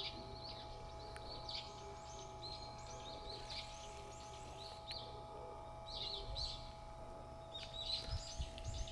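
Small birds chirping in quick clusters, over a steady faint hum, with a few low thumps near the end.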